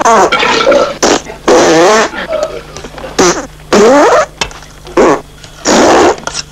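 Comic flatulence: a quick run of about seven loud farts one after another, several wobbling up and down in pitch.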